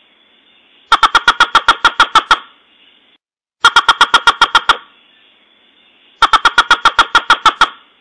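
Looped recording of a bird call used as a trapping lure (sold as the 'ốc cao' call). Three bursts of about seven to ten rapid, sharp notes each, at roughly seven notes a second, separated by pauses of about a second, with faint recording hiss between.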